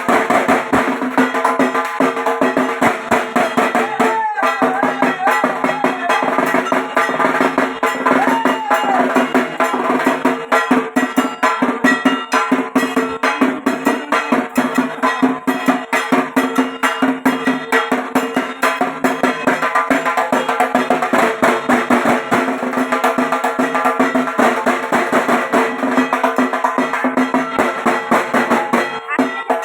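Dhak, the Bengali barrel drum, beaten with sticks in a fast, unbroken rhythm of dense strokes. A wavering pitched sound rises over the drumming about four seconds in and fades after a few seconds.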